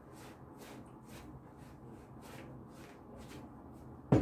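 A hand working flour and water into a stiff dough in a plastic bowl: a soft, rhythmic rustling of about two to three strokes a second. Near the end a glass water jug is set down on the wooden table with a sharp knock, the loudest sound.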